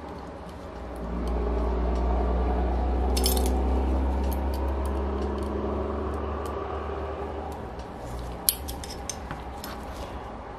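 Small metal clicks and clinks of an L-shaped hex key working the cylinder screws of an O.S. FF-240 Pegasus model engine's crankcase, with a brief scrape about three seconds in and a sharp click near the end. A steady low hum sits underneath, swelling about a second in and slowly fading.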